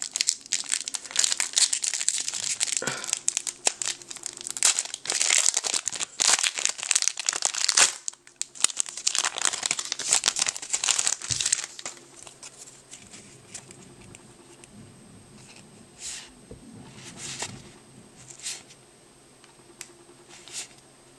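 Foil Yu-Gi-Oh! booster-pack wrapper crinkling loudly as it is torn open and worked apart, with a short break about eight seconds in. After about twelve seconds it turns much quieter, with a few soft rustles as the cards are handled.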